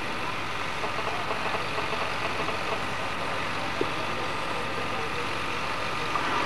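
Steady background hiss and hum with no voice, a pause between recited verses.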